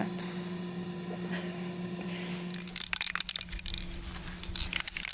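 Quick, irregular scraping and crackling from hand work on a van's painted metal lower side panel, starting about two and a half seconds in.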